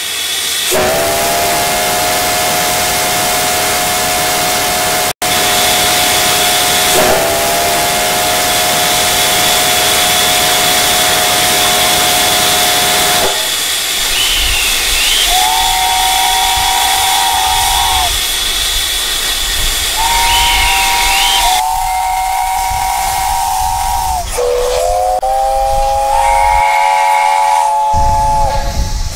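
Steam locomotive whistle sounding a chord of several tones over a steady hiss of steam: two long blasts, each bending up slightly as it starts, then about four shorter blasts from halfway on, with a low rumble underneath.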